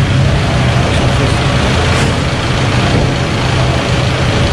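Motor vehicle engines idling steadily, a constant low engine hum over general traffic noise.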